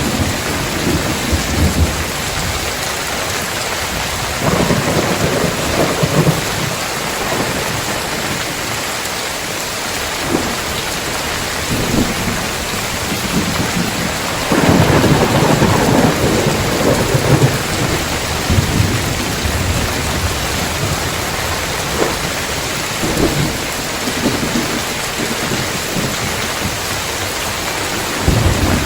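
Heavy rain falling steadily on a tiled roof, with rolls of thunder. A short rumble comes near the start and another about five seconds in. The longest and loudest comes about halfway through, with a few short sharp cracks scattered between.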